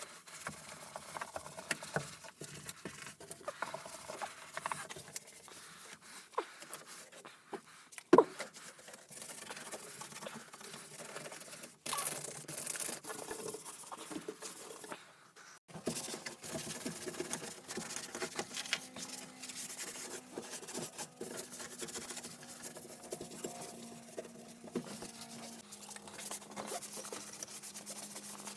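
Sped-up sounds of hand-cleaning a car interior: irregular rubbing, scraping, rustling and clicks from wiping and handling things, with a faint steady hum joining about two-thirds of the way through.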